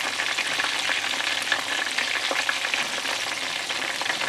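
Breaded chicken drumsticks frying in hot oil in a pan, a steady sizzle full of small crackles, as they are turned over with tongs.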